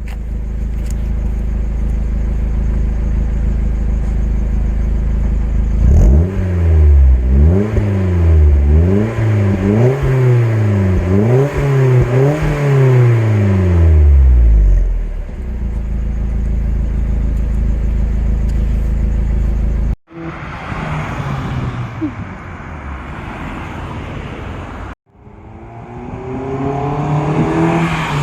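Mazda Miata NB four-cylinder engine through a Mutazu axle-back muffler with a deep rumbling note. It idles steadily, is revved about five times in quick succession, and settles back to idle. After a cut there is a quieter stretch, and after a second cut the engine climbs in pitch as it accelerates.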